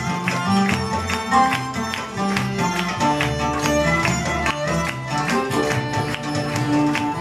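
Live oriental ensemble music: violin and double bass playing a rhythmic tune over a steady beat of drum strokes.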